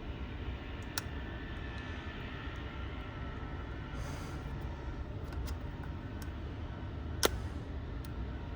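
Two sharp clicks, a small one about a second in and a louder one near the end, from pry tools working an iPhone's lifted screen past its stripped pentalobe screws, over a steady low background rumble.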